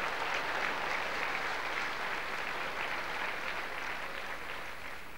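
Audience applauding steadily after a punchline, easing off slightly near the end.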